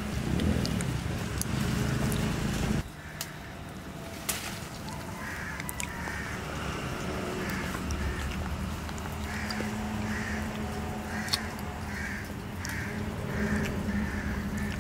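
Crows cawing, a run of harsh calls starting about five seconds in and coming faster toward the end.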